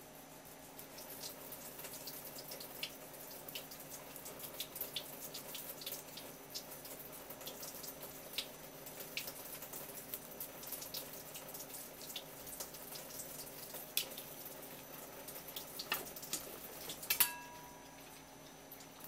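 Kitchen knife scraping the scales off a shima-aji (striped jack): a fast, irregular run of small crisp ticks and crackles as the blade lifts the scales. Near the end the ticking stops and the steel blade gives one sharp clink with a short metallic ring.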